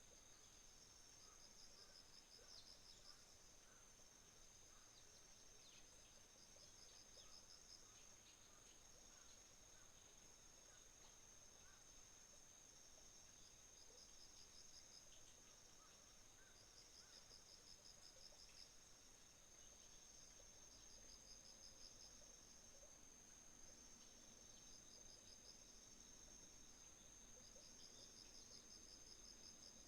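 Faint chorus of autumn insects: a continuous high-pitched trill with phrases of pulsed cricket chirps repeating every two to three seconds. Faint, sparse bird chirps come through in the first half.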